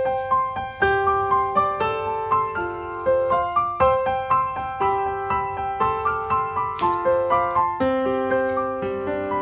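Background piano music, a gentle melody of repeated notes over a steady bass.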